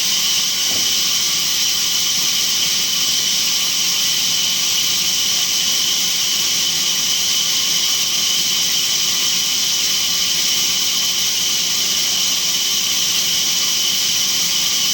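Sawmill saw running steadily: a loud, even, high-pitched hiss with a whine in it that neither rises nor falls.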